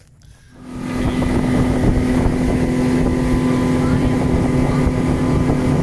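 Motorboat engine running steadily with the boat under way, fading in about half a second in, with wind on the microphone.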